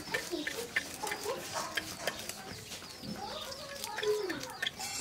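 Chickens clucking in short calls, one louder cluck about four seconds in, over small scraping clicks of a climbing perch being scaled and gutted against a curved boti blade.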